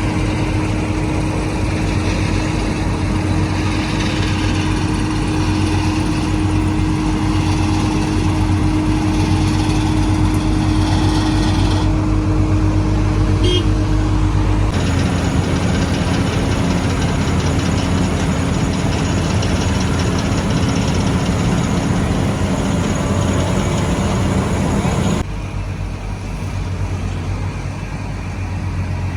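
Heavy diesel engines of road-paving machinery running steadily, with the engine note changing abruptly several times, about twelve, fifteen and twenty-five seconds in.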